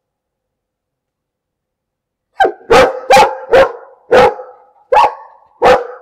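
Dog barking: a quick, irregular run of about seven loud, sharp barks beginning about two and a half seconds in.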